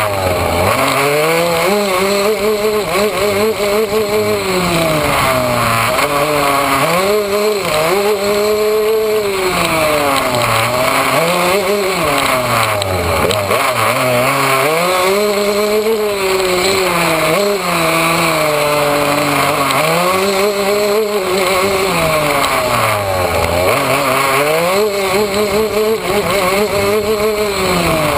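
Yamaha YZ125's two-stroke single-cylinder engine revving hard while the dirt bike is ridden, its pitch climbing and dropping again a dozen or so times as the rider opens and closes the throttle.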